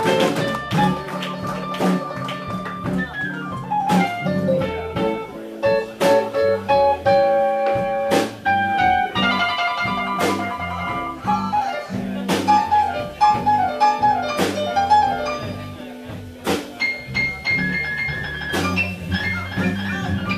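Live blues band playing a slow number: an electric guitar with bent notes over bass, piano and drums, with the drums hitting a backbeat about every two seconds.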